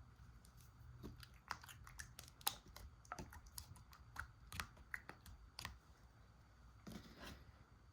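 Slime being pressed and pulled by hand, giving a string of faint, irregular sticky clicks and pops, most of them in the first half, with a last pair near the end.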